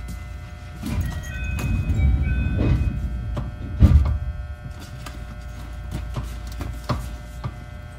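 Interior sound of a JR 221 series electric train's motor car with the air conditioning off: a low rumble with scattered clicks and knocks. Brief high tones come between about one and two and a half seconds in, and a sharp knock about four seconds in is the loudest moment.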